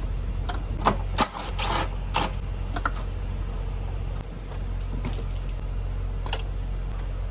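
Hand tools and metal fasteners clinking and clicking as engine-bay parts are taken off, in irregular single clicks with a busier cluster about a second in, over a steady low hum.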